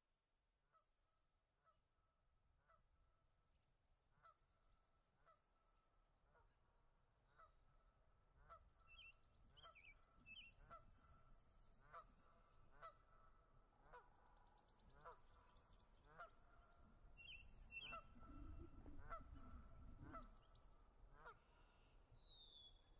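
Faint birds calling: one bird repeats a short two-tone note about once a second, while other birds add higher chirps and short falling whistles from about a third of the way in. A faint low rumble comes in about three quarters through.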